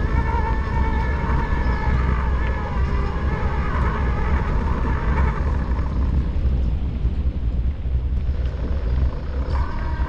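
Electric mountain bike's drive motor whining under pedal assist over heavy wind and tyre rumble on the microphone; the whine fades out about six seconds in and comes back near the end.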